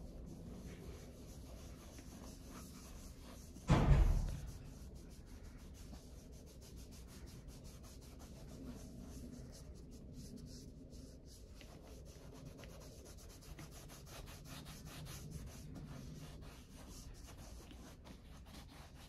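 Sponge applicator of a shoe-moisturizer tube rubbing over a black Dr. Martens leather boot in many quick, faint strokes. One louder thump about four seconds in.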